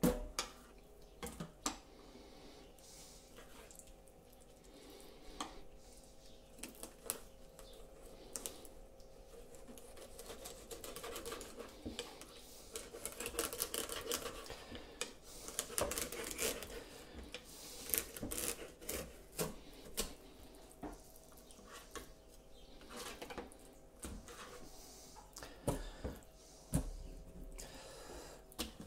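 Kitchen knife filleting a garfish on a wooden chopping board: quiet slicing and scraping along the fish, with scattered clicks and knocks of the blade and hands on the board. It gets busiest around the middle.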